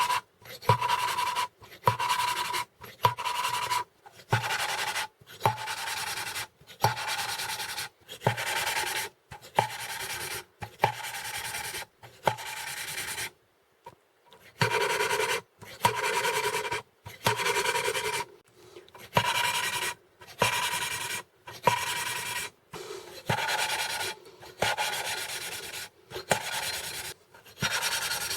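Engine valves on a MeMZ-2471 cylinder head being hand-lapped into their seats: a gritty rasping grind in short strokes about once a second, with one short pause about halfway through.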